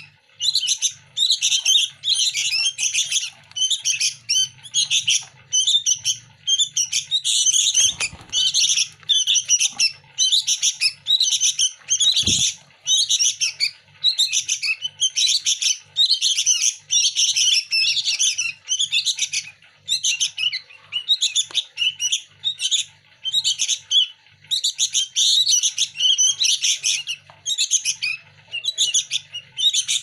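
Fledgling sooty-headed bulbuls giving harsh, rapid begging calls nonstop, about two bursts a second: hungry young birds clamouring to be hand-fed. Two dull thumps come about a third of the way in.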